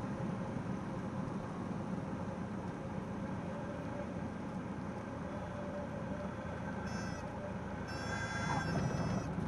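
Cessna 172S's four-cylinder Lycoming engine and propeller running steadily with wind noise as the plane rolls along the runway. Near the end, a brief high-pitched tone sounds over it.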